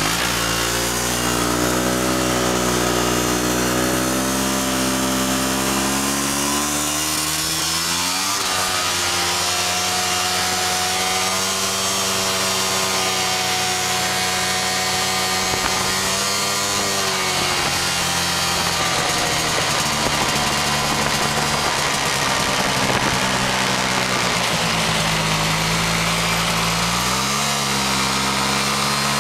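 Snowmobile engine running while riding across snow. Its pitch climbs over the first several seconds and drops suddenly about eight seconds in, then holds steady. It falls again around twenty seconds and rises once more near the end.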